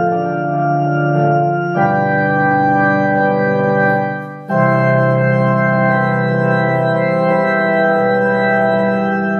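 Yamaha electronic keyboard played with an organ sound, slow sustained chords. The chord changes about two seconds in and again near the middle, after a short dip in loudness.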